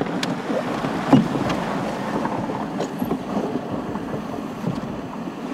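Water sloshing and splashing around a canoe as it is paddled, with a sharp knock about a second in.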